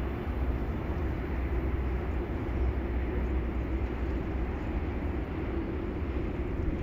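Budapest HÉV suburban electric train running along the track at a distance, heard as a steady low rumble with no distinct clicks, squeal or horn.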